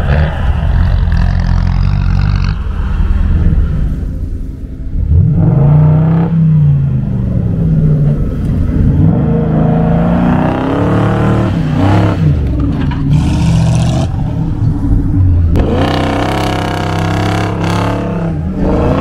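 Off-road 4x4's engine revving up and dropping back about three times, its pitch rising and falling.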